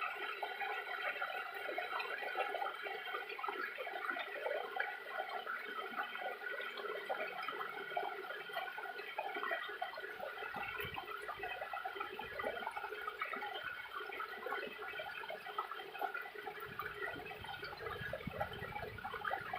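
Small waterfall, water splashing and falling steadily.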